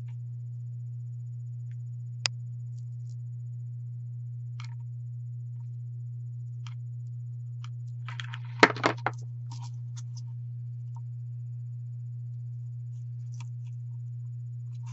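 Small clicks and taps of hands working with a hot glue gun and felt on a craft board, over a steady low hum. A single sharp click comes about two seconds in, and a short cluster of louder clacks about eight and a half seconds in.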